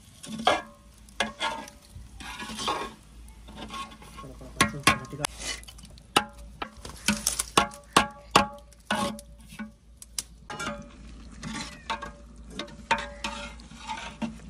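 Long-handled steel ladle stirring and scraping cooked rice in a large metal cooking pot, with repeated irregular metal-on-metal clinks that ring briefly.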